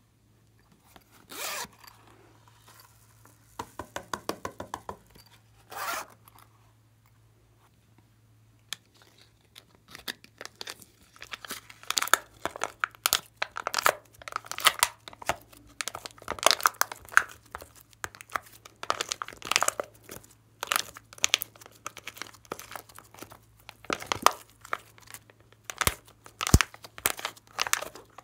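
Thick slime being pressed and peeled out of the wells of a plastic palette by hand, giving a dense run of small sticky crackles and pops. In the first few seconds there are only a few handling noises on plastic and a quick run of clicks.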